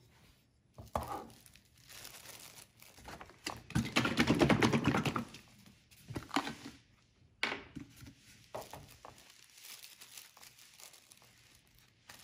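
Clear plastic bag crinkling and rustling as it is handled. The loudest stretch lasts about two seconds in the middle, with shorter rustles before and after.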